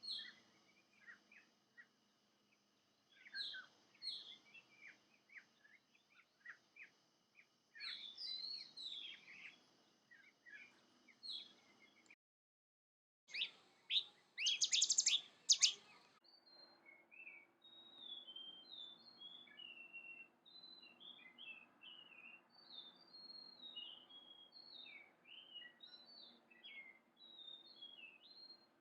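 Wild songbirds singing in a series of short, high chirping phrases. The song breaks off for about a second twelve seconds in and returns as a louder burst. After that comes a long run of short, high, repeated notes, in a different pattern from the earlier song.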